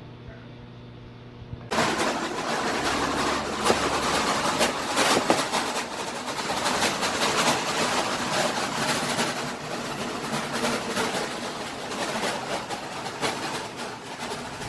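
Steady low hum, then about two seconds in a sudden jump to a Chevrolet 5.3 L V8 running close up, a loud mechanical clatter with dense irregular ticking from the valvetrain. The engine has a lifter that fails to hold oil pressure and a misfire.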